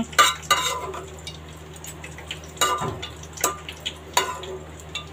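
Steel ladle scraping and knocking against a non-stick frying pan as fried bitter gourd seeds are stirred in hot oil: about five sharp strokes over a low sizzle.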